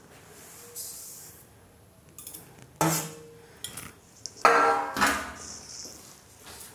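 Sesame seeds sliding from a steel plate into an empty aluminium kadhai with a brief hiss, then three ringing metal clanks, the loudest two close together near the end, as the plate knocks against the kadhai and the slotted spoon goes in to stir.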